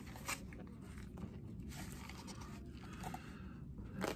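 Faint clicks and light scraping from a clear plastic O-ring assortment case being handled and picked through, with a sharper click about a third of a second in and another near the end.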